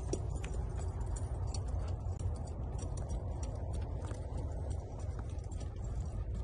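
Hoofbeats of a sorrel Quarter Horse colt loping on a dirt round pen, heard as light irregular ticks over a steady low rumble.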